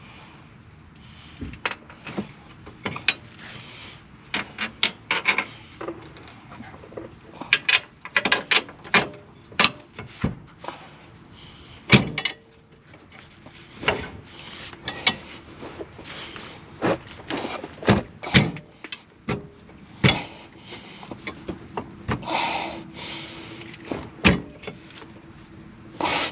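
Hand tools and metal suspension parts clinking and knocking at irregular intervals as the car's axle and suspension are bolted back together.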